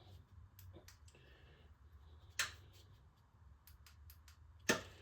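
Sparse light clicks and knocks from parts or tools being handled, with a sharper click about halfway and a louder knock near the end, over a low steady hum.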